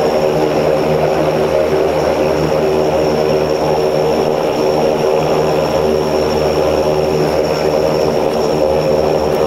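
Antonov An-24's two Ivchenko AI-24 turboprop engines running steadily at low power on the ground, heard from on board. A loud, even propeller drone made of several steady tones, with a thin high turbine whine above it.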